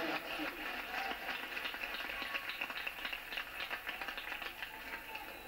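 A gym crowd clapping: a dense crackle of many hand claps that fades toward the end.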